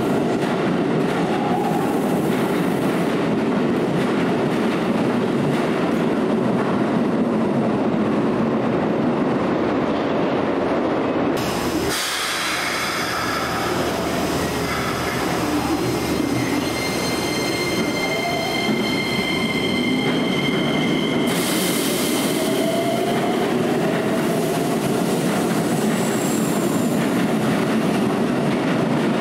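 Keikyu 1000 series electric train pulling out of an underground platform, its motors whining up in pitch over the rumble of the wheels. Then a Keikyu 1500 series electric train stands at the platform and pulls out, its motor whine again rising in pitch as it moves off near the end.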